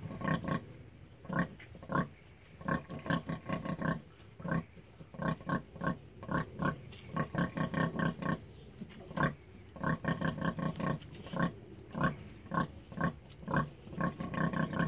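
Hereford sow giving a steady series of short, low nursing grunts to her suckling piglets, some single and some in quick runs. This is the rhythmic grunting a sow makes to call her litter to feed and signal milk let-down.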